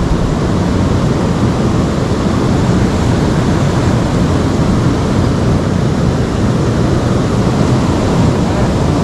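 River water rushing, a loud steady noise with no breaks.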